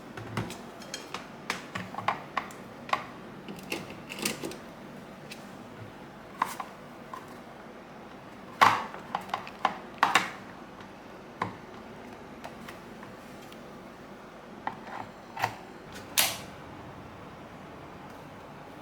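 Scattered clicks, taps and knocks of hard kitchen items being handled and set down, a dozen or more irregular strikes with the loudest knocks about nine, ten and sixteen seconds in.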